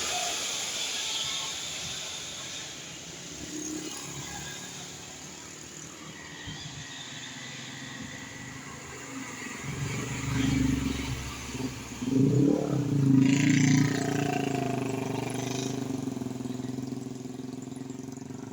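Road traffic with a vehicle engine passing close: it grows louder about ten seconds in, revs with rising and falling pitch, is loudest around thirteen seconds, then fades.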